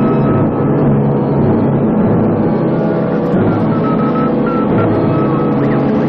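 Music with dense sustained chords, organ-like, and a thin high tone that wavers near the end.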